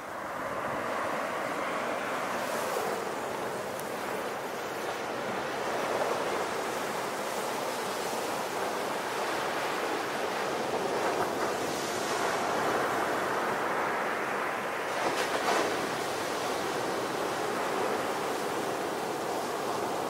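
Sea waves breaking and washing up a beach: a steady surf wash that swells and eases, with a sharper crash about fifteen seconds in.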